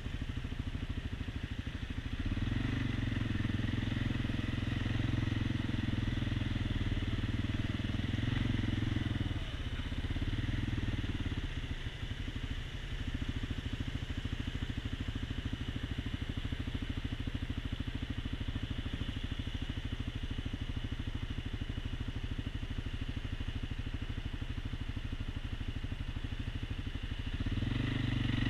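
ATV engine running close under the rider, a continuous rapid chugging rumble. It grows louder with throttle from about two seconds in, eases off after about ten seconds to a steadier lower run, and picks up again near the end.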